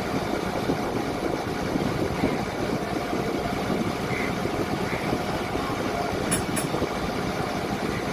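Steady low rumble of a harbour ferry boat's diesel engine running. Two short clicks come about six and a half seconds in.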